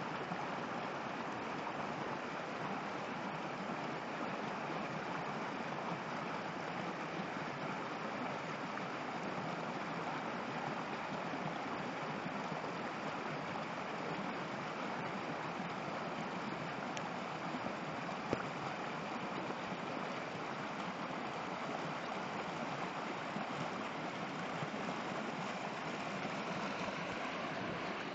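River water rushing and splashing over rocks in a shallow whitewater rapid, a steady sound close to the water, with one brief click about eighteen seconds in.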